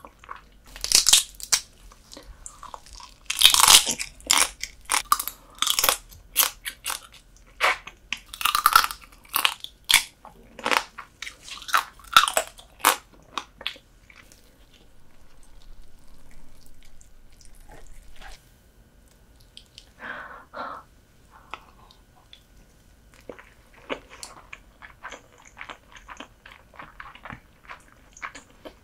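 Close-miked eating of soy-sauce-marinated horsehair crab: the shell crunching and cracking between the teeth, with chewing. A dense run of loud, sharp crunches fills the first half, then the bites grow sparser and quieter.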